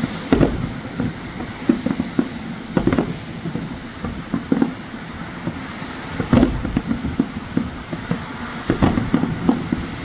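Fireworks display going off: a steady run of irregular bangs and pops over a low rumble. The heaviest booms come about half a second in, near three seconds, just past six seconds and near nine seconds.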